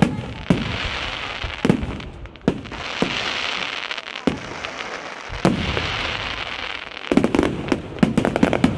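Fireworks display: aerial shells bursting with sharp bangs about once a second, a hissing crackle between them, and a rapid run of bangs near the end.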